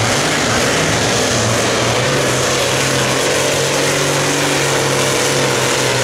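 Modified John Deere classic super stock pulling tractor's engine running flat out under load while dragging the weight sled. It holds a loud, steady, even pitch, with the dirt and sled noise mixed in.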